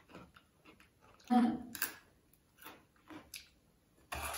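Small clicks and crunches of people chewing thin snack sticks, with one brief voiced murmur a little over a second in. Near the end comes a rustle, as of a plastic snack wrapper being handled.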